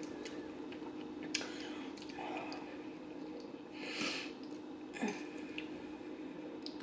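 Quiet eating sounds: soft chewing and wet mouth sounds, with a few light clicks and a brief scrape of a metal fork in the food on the plate, over a faint steady hum.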